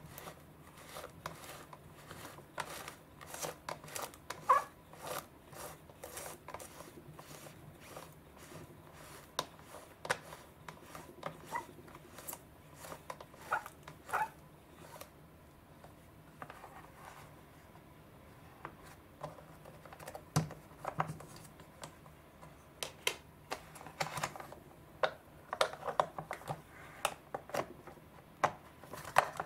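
Irregular plastic clicks, taps and rattles of a hand-operated roll-sushi maker as its rollers are turned and its frame is pressed and moved, sparser in the middle and thicker near the end.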